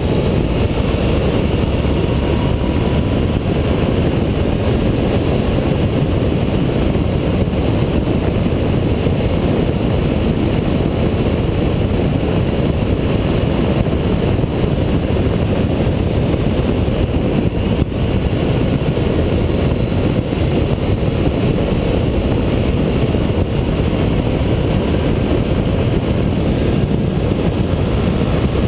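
Steady low rush of wind on the microphone mixed with the engine and road noise of a Honda ST1300 motorcycle cruising at an even speed. The noise stays level with no gear changes or revving.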